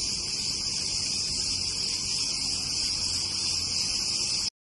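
A chorus of cicadas shrilling in a steady, unbroken high-pitched buzz that cuts off suddenly near the end.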